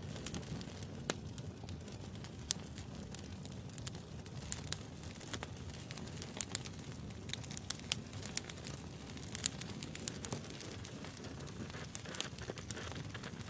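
Wood campfire burning: irregular sharp crackles and pops, several a second at times, over a steady low rush of the flames.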